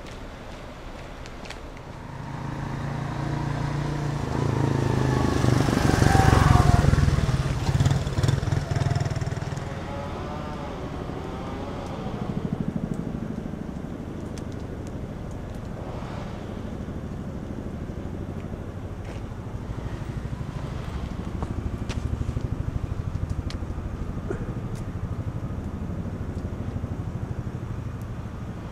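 A motor vehicle passes close by, growing louder to a peak about six seconds in and fading away by about ten seconds, with a gliding whine as it goes. A low hum of traffic carries on after it, swelling a little twice more.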